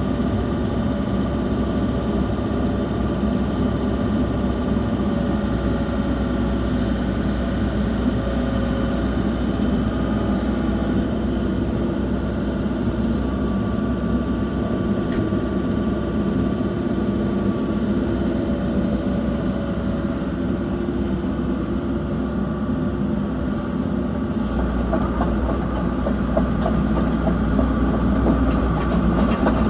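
Diesel engine of a 1993 Samsung SE130LC tracked excavator running steadily, a low drone that grows a little louder near the end.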